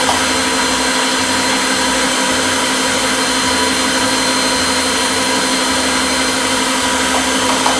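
Electric stand mixer running steadily, beating cake batter as flour is added. A few light knocks come near the end.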